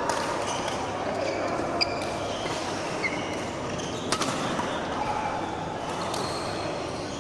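Badminton rally: three sharp racket strokes on the shuttlecock about two seconds apart, with short high shoe squeaks on the court floor and a murmur of voices behind.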